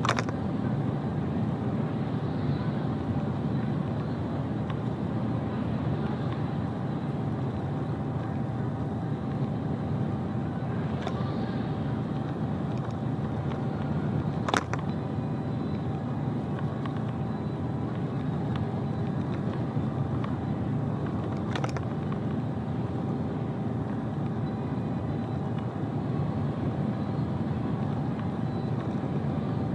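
Truck driving along a motorway: steady engine and road rumble with a faint steady whine, and a few sharp clicks spread through it.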